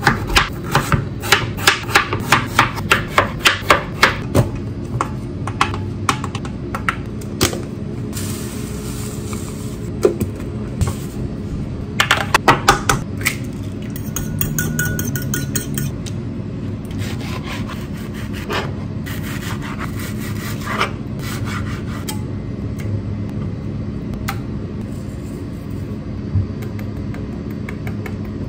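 Kitchen food preparation: rhythmic scraping and tapping strokes, about three a second for the first few seconds. After that they turn irregular, with a quick cluster midway, over a steady low hum.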